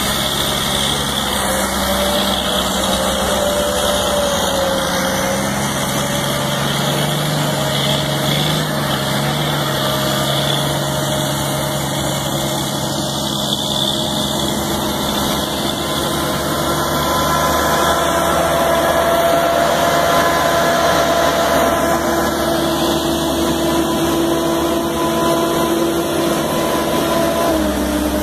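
Heavy diesel engines of a John Deere wheeled harvester and a fully loaded log truck working under load as the harvester pulls the stuck truck. The steady engine note grows louder about two-thirds of the way through.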